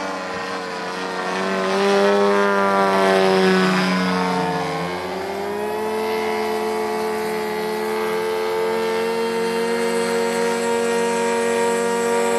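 Engine and propeller of a radio-controlled Ultimate 10-300S model aerobatic biplane in flight. The pitch slides down and back up as it manoeuvres, loudest about two to four seconds in, then holds a steady high tone.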